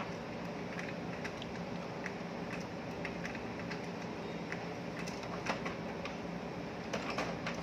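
HP Smart Tank 516 inkjet printer working through a print job, its mechanism giving irregular clicks and ticks over a steady hum as it moves to pick up a sheet of paper, with a small cluster of clicks about a second before the end.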